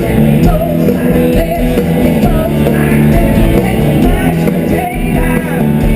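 Rock music: a band with singing, guitars and drums, loud and continuous.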